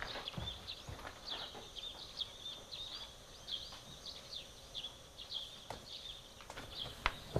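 Small birds chirping: quick, high chirps repeating throughout, with a few soft knocks.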